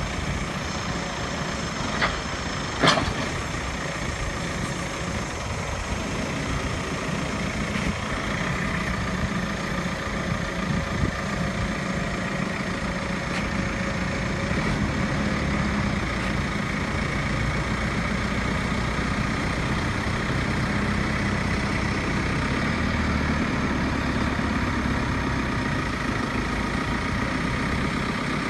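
Diesel engine of a JCB 5CX backhoe loader running steadily, with two sharp knocks about two and three seconds in.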